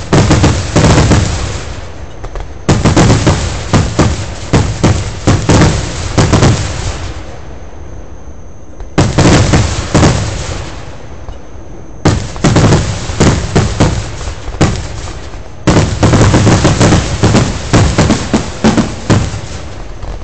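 Aerial fireworks going off in rapid volleys of loud bangs and crackles, each volley lasting a few seconds, with short lulls between them.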